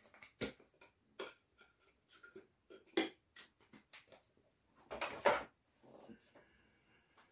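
Handling noise as a pyrography micro skew tip is fetched for the second pen: a series of sharp clicks and light knocks of small hard items, with a longer rustle about five seconds in.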